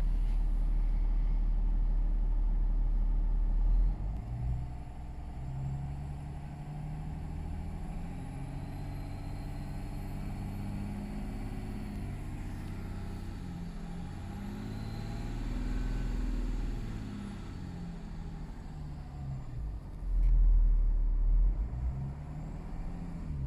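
A turbocharged car engine runs with its pitch rising and falling, and a faint thin whistle like air escaping under pressure comes and goes over it. The whistle shows up at about 1500–2000 rpm while boost is normal and there is no smoke; whether it comes from the turbocharger or a boost leak is still unknown. A heavy low rumble fills the first few seconds and comes back near the end.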